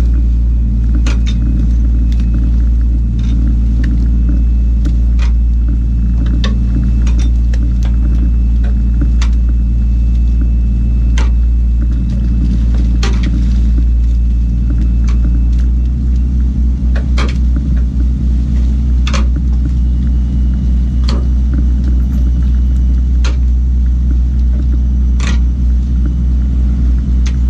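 A fishing boat's engine runs with a heavy, steady low rumble, broken by scattered sharp knocks and slaps of fish and gear on the deck. From about sixteen seconds in, the rumble takes on a fast, even throb.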